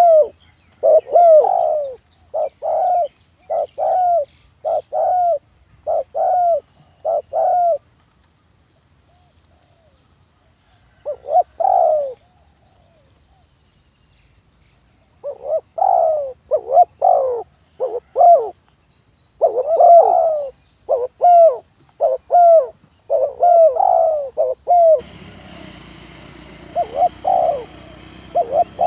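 Spotted dove cooing: runs of short, loud coo notes, which stop for several seconds in the middle and then start again. A steady hiss joins the cooing near the end.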